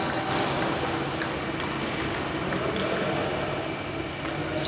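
Table tennis rally: a few sharp clicks of the celluloid ball off bats and table, about a second apart, over a steady hum of a pedestal fan in a large hall.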